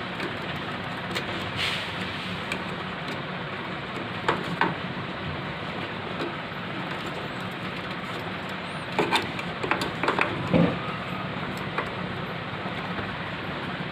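A RAM module being handled and pressed into a motherboard slot: sharp plastic clicks and knocks, a pair about four seconds in and a louder cluster from about nine to ten and a half seconds in, over a steady hiss.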